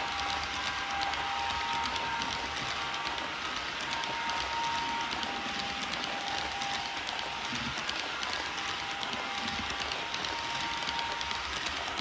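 H0-scale model locomotive running with its train of pocket wagons: a steady rolling noise of the small wheels on the track, with a faint motor whine that comes and goes.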